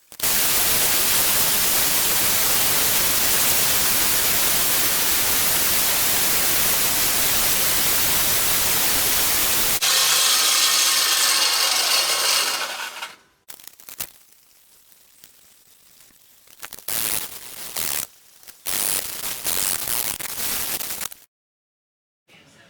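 A power grinder runs steadily while grinding the steel tang of a cutlass. Its sound changes about ten seconds in and dies away a few seconds later. After that come several shorter rasping strokes of a hand file on the steel tang.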